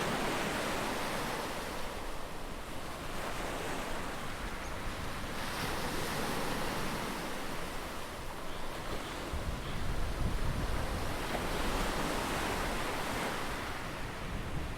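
Ocean surf: waves breaking and washing in, the rushing noise swelling and easing in surges every few seconds. There is a deeper rumbling swell about ten seconds in.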